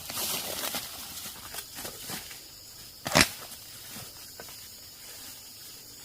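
Rustling and crackling of outdoor handling or movement, with one sharp knock a little over three seconds in, over a faint steady insect chirr.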